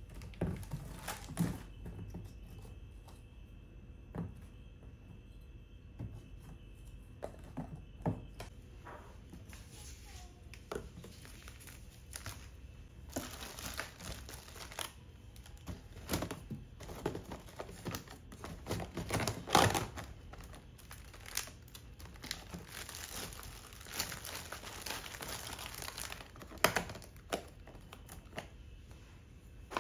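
Plastic bags and packaging crinkling while jars and a plastic container knock against each other as they are set into woven baskets; the handling starts as scattered knocks and turns into denser crinkling after about nine seconds.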